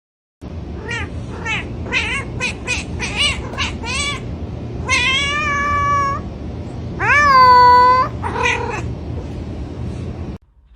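A cat meowing repeatedly: a quick run of about eight short meows, then two long drawn-out meows, the second the loudest, and one more short meow. The sound cuts off suddenly near the end.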